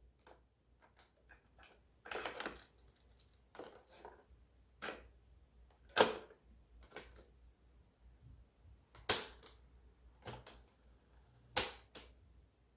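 Irregular sharp plastic clicks and knocks, about a dozen spread over the stretch, the loudest about halfway through and again a few seconds later: the controls and case of a 1980s cassette radio boombox being handled while its sound is off.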